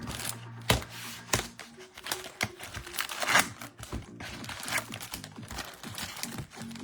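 Plastic wrapping on sealed trading card boxes and packs crinkling and tearing in irregular bursts as it is handled and opened, over background music.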